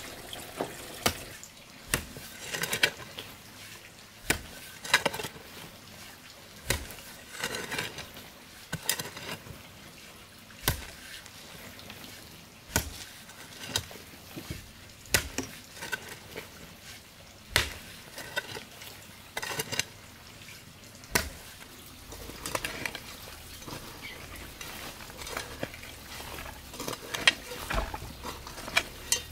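Metal hoe chopping into loose dry soil, a sharp strike every second or two with scraping and crumbling earth between strokes.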